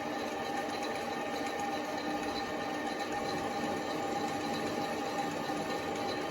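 Mini lathe running steadily under power, its lead screw driven through 3D-printed PLA change gears, taking the final clean pass of a 1 mm pitch thread: an even mechanical whine with a few steady tones.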